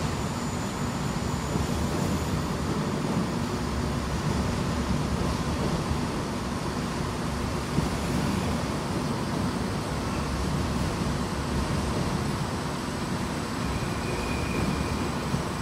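Greater Anglia Class 745 Stadler FLIRT electric multiple unit arriving at the platform, with a steady low rumble of its running gear and traction equipment. A short high tone sounds near the end.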